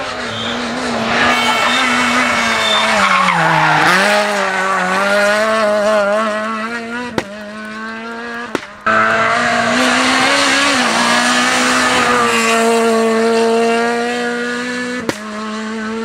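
Renault Clio rally car's four-cylinder engine running hard at high revs; its pitch dips about four seconds in and climbs back, and the sound breaks off and jumps abruptly a few times.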